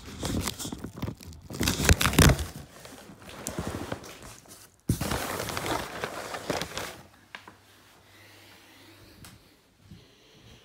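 Rustling and crinkling with scattered knocks, loudest around two seconds in, breaking off abruptly about five seconds in, then dying down to a faint background after about seven seconds.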